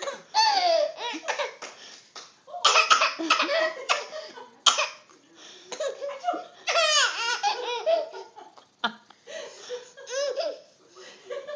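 A baby laughing: belly laughs in several bouts with short pauses between them, some with high squealing peaks.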